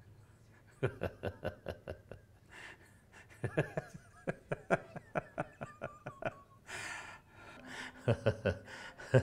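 A man laughing in runs of quick, short pulses, with a sharp gasping in-breath about seven seconds in before a last burst of laughter.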